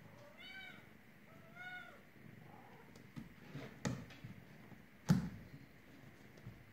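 A kitten meows twice, two short calls that rise and fall in pitch, then scrabbling knocks as it climbs out of a fabric storage box, the loudest a sharp knock about five seconds in.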